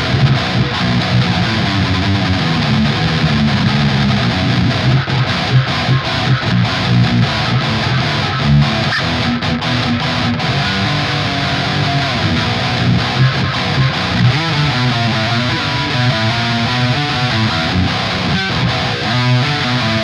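Eight-string electric guitar with Chinese-made Invander humbucker pickups, played through an amplifier on a distorted tone: continuous riffing, strongest in the low notes.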